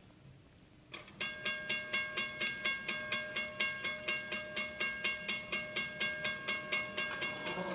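Railroad grade-crossing bell starts about a second in and rings steadily at about four strikes a second, each strike ringing on. It is the crossing's warning that a train is approaching.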